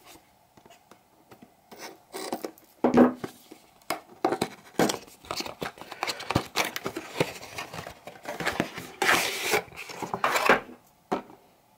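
Pocketknife blade slitting the seal of a cardboard box, then cardboard scraping and rubbing as the box is opened and its inner tray slid out, with a louder burst of scraping about nine seconds in.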